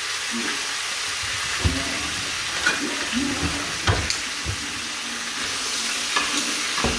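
Rump steak sizzling steadily in a very hot cast iron skillet, a constant frying hiss, with a few light knocks scattered through it.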